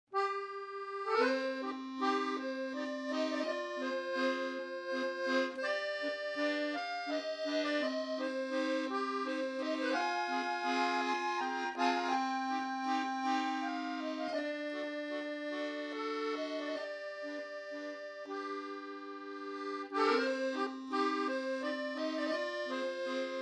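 Instrumental intro music: a tune of held notes and chords.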